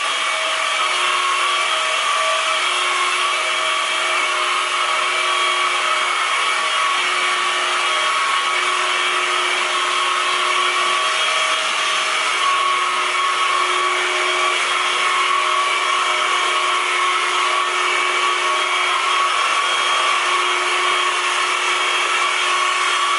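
A small motor running steadily, a loud, even whirring with a constant hum that neither rises nor falls.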